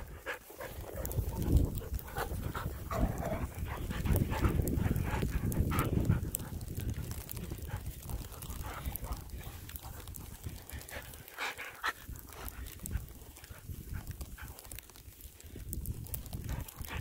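Dogs panting close by, with scattered short clicks and crunches. A low rumble is loudest from about one to six seconds in.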